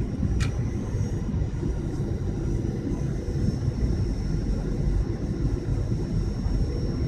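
Steady cabin noise of an airliner in flight, the low rush of engines and airflow, with a faint high whine and a single click about half a second in.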